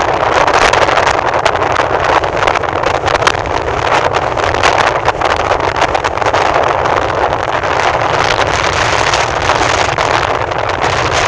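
Strong wind buffeting the microphone over a steady rushing noise from the sea, with no clear gull calls standing out.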